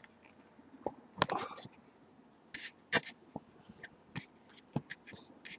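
Paper food wrapping being handled: short crinkles and rustles mixed with scattered light clicks and knocks.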